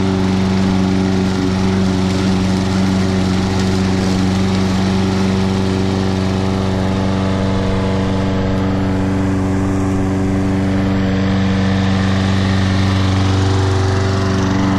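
Toro Personal Pace Recycler lawn mower's 190cc Briggs & Stratton engine running steadily at an even speed, on freshly changed oil.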